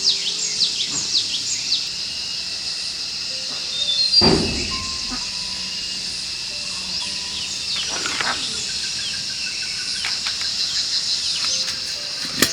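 Birds chirping in quick falling calls over a steady high insect drone, with soft background music of gentle held notes; a short rustling thump about four seconds in.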